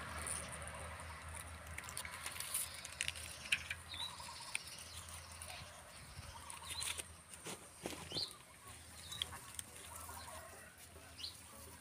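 Light rustling and scattered small clicks of hands working pandan leaves and marigold flowers into a bundle, with short high bird chirps every few seconds.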